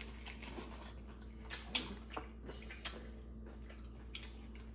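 Quiet wet eating sounds of seafood boil: a handful of short mouth smacks and sucking clicks, spread out through a few seconds.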